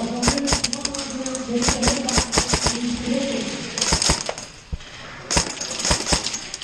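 Airsoft guns firing in rapid bursts of sharp clicks, about four bursts with short gaps between them. Faint shouting comes through in the first half.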